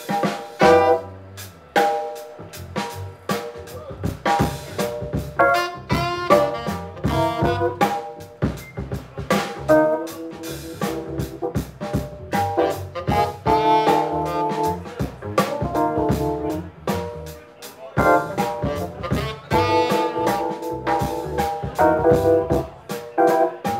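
Live jazz quartet playing a tune: saxophone carrying the melody over upright bass, drum kit with rimshots, and keyboard.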